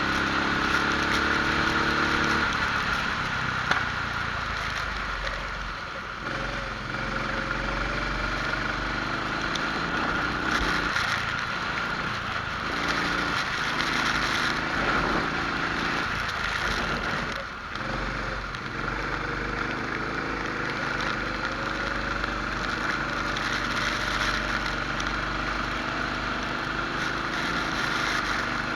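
Rental kart engine heard onboard, its pitch rising and falling again and again as it accelerates and lifts, over a steady hiss.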